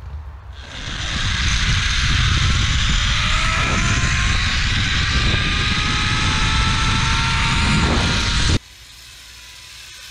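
Zip-line trolley pulleys running along a steel cable: a loud rushing whir with a thin whine that slowly rises in pitch as the rider picks up speed, over heavy wind buffeting the microphone. It cuts off suddenly about eight and a half seconds in.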